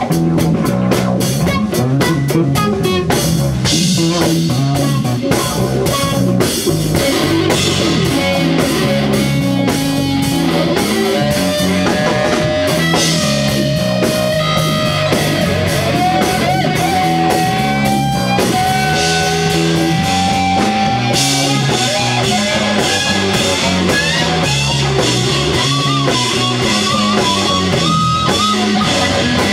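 Live rock band playing an instrumental passage: an electric guitar (Telecaster-style) carries a lead line of long held notes that bend in pitch, over a drum kit keeping a steady beat.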